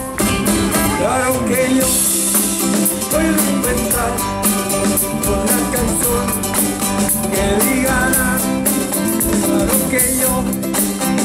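Live folk-rock band playing the instrumental intro of a song at full volume: strummed acoustic guitars and horns over a steady held bass note, with gliding melody lines on top. Just before it a lone plucked guitar had been playing, and the full band comes in right at the start.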